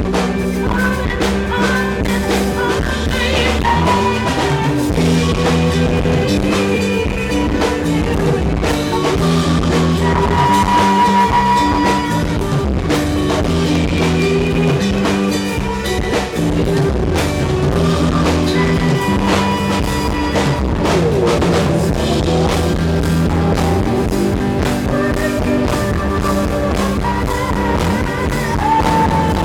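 A rock band playing live, with drum kit, bass and guitar and a sustained melodic line over them.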